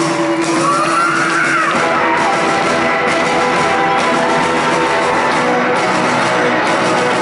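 Live rock band playing, heard from the audience: electric guitar and keyboards, with a gliding lead line about a second in.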